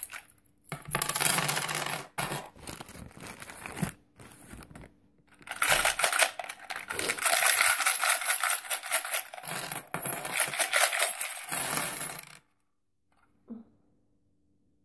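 Coins tumbling and rattling out of a money box as it is emptied through the opening in its base, in two spells of clattering jingle. The second spell is the longer one and stops suddenly about twelve seconds in.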